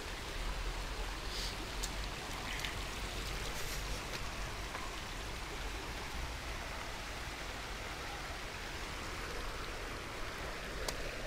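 Shallow water running over stones: a steady hiss of flowing water, with a low rumble underneath and a few faint clicks.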